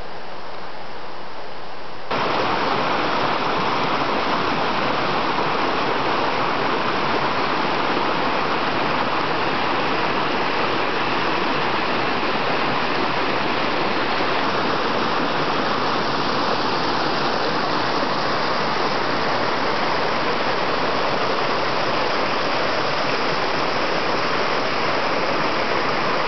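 Steady rushing of a brook's running water, a little louder from about two seconds in.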